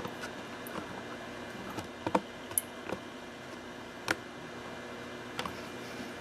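A few light clicks and taps of small objects being handled on a workbench, the sharpest about two seconds in and about four seconds in, over a steady background hiss with a faint hum.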